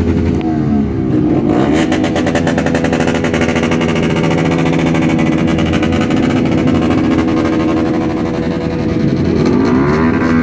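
Motorcycle engines revving loudly in dense street traffic, the pitch sweeping down and up again near the start and the end.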